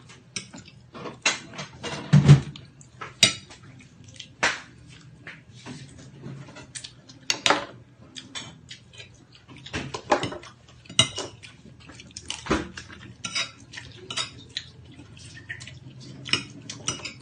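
Metal spoon and fork clinking and scraping against mussel shells and dishes while shellfish is eaten: irregular sharp clinks and clicks throughout, with one heavier knock about two seconds in.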